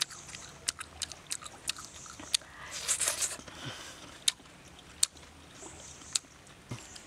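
A person biting and chewing cooked frog meat close to the microphone: irregular sharp crunching clicks and mouth smacks, with a louder noisy bite about three seconds in.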